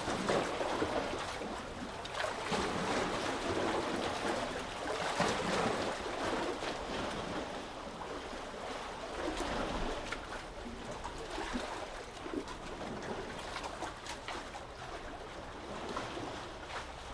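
Sea water lapping and washing in small waves, swelling and easing every few seconds, with many small splashes and trickles.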